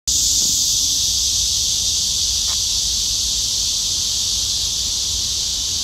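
Steady, high-pitched chorus of insects shrilling without a break.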